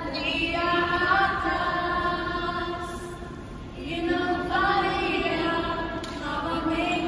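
A group of voices singing a slow worship song in long, held notes, phrase after phrase.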